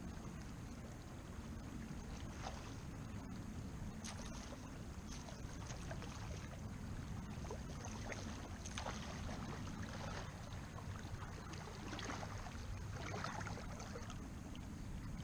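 Shallow river water lapping and gurgling right at the microphone: a steady low rumble with scattered small splashes and trickles.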